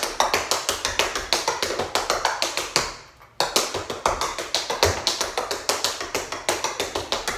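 Tap shoes striking a bamboo floor mat in a fast run of tap steps, many taps a second, breaking off for about half a second some three seconds in and then starting again.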